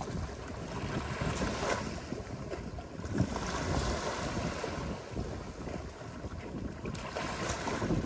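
Ocean surf breaking and washing up a beach, the hiss swelling and easing every few seconds, with wind rumbling on the microphone.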